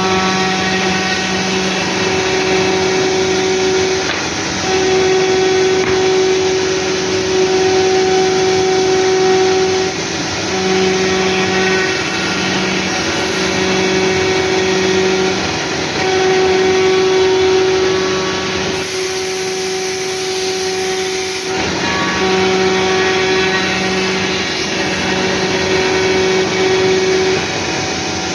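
CNC router running, with a steady machine hiss and a whine whose tones start and stop every second or few seconds as the machine moves through its job.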